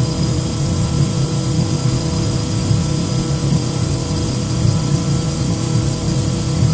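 Steady engine drone: a constant low rumble with several unchanging tones layered above it.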